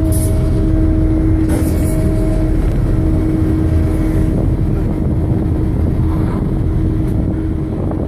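A cargo riverboat's diesel engine running steadily, a loud low rumble with a constant hum tone riding over it. A few brief scuffing noises come and go.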